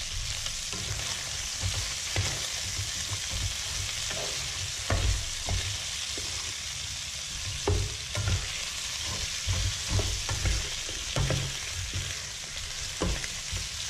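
Chicken pieces sizzling in a nonstick frying pan while a wooden spatula stirs them, with irregular knocks and scrapes of the spatula against the pan.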